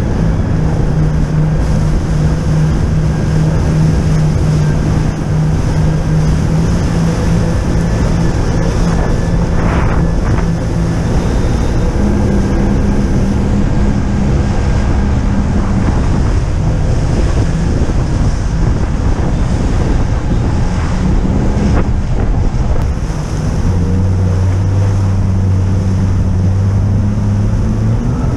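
Personal watercraft (jet ski) engine running under way, its engine note stepping up about halfway through and dropping lower near the end, with water rushing past and wind buffeting the microphone.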